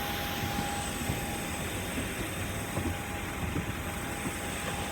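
Steady cabin noise of a passenger plane: an even hum of the engines and air with a faint high steady tone running through it.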